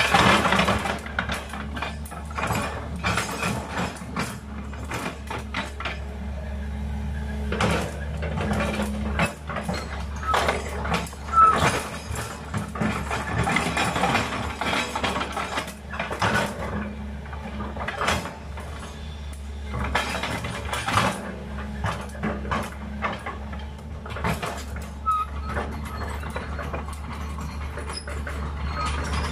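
Sumitomo SH210 hydraulic excavator's diesel engine running steadily, with repeated irregular clanks and knocks from the machine at work.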